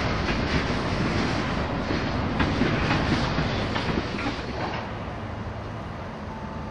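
Freight train wagons rolling past, their wheels clacking over rail joints. About five seconds in the clatter dies down to a quieter, steady rumble.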